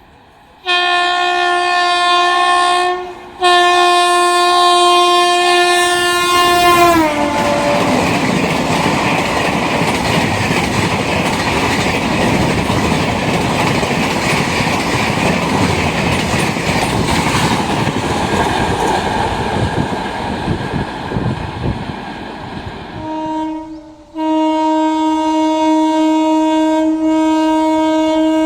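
A locomotive horn sounds two long blasts, the second sliding down in pitch as the train passes close by. The train then rumbles and clatters past on the rails for about fifteen seconds. Near the end another long, steady horn blast begins.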